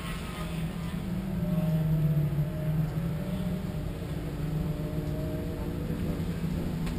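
Distant race car engines revving, their pitch slowly rising and falling, over a steady low hum.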